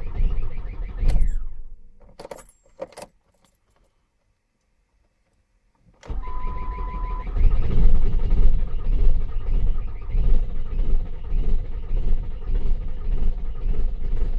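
Ford Mondeo engine turning over while being started. The sound fades, a few sharp clicks follow, then there is a gap of dead silence. A short beep sounds, and the engine turns over again with an even rhythm.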